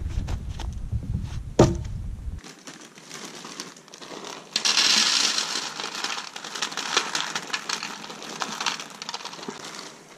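A plastic zip-lock bag crinkles as dry dog kibble is poured and shaken from it into a plastic bowl, with many small rattling clicks. Before that, one sharp knock comes about one and a half seconds in, over wind on the microphone.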